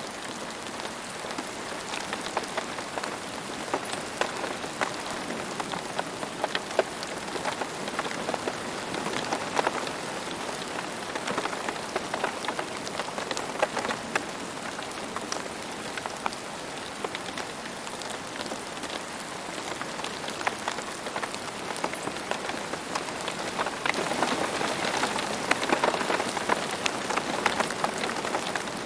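Steady rain falling, with many individual drops ticking sharply through the hiss. The rain grows heavier for a few seconds near the end.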